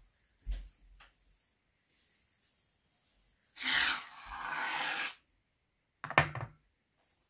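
Hands rubbing and scrunching hair foam through curly hair: one rasping rub of about a second and a half midway and a shorter one near the end.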